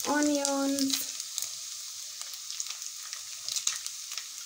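Omena (small dried sardines) frying in oil in a pan: a steady sizzle with scattered light ticks and crackles as sliced onions are dropped in. A voice holds one drawn-out note for about the first second.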